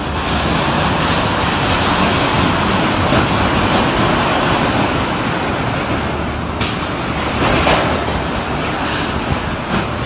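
Violent windstorm roaring: a loud, steady rush of wind, with a few sudden bangs in the second half as sheet-metal roofing is torn loose and thrown about.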